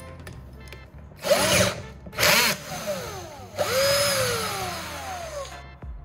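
Power tool run in three bursts, short, short, then longer, with its pitch sweeping up and down as it works. Quiet background music plays under it.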